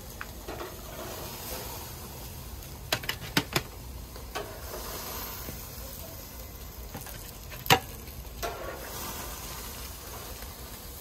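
Steady low hiss from the lit Smoke Hollow portable propane grill and the just-cooked burgers. A metal spatula clicks sharply against the aluminium sheet pan twice about three seconds in, then once more loudly later on.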